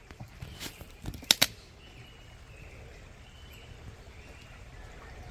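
Two sharp clicks close together about a second and a half in, with a few fainter clicks just before them, then a quiet outdoor background with faint high thin calls.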